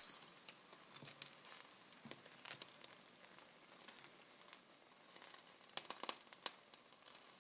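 Near silence with faint scattered clicks and crackles.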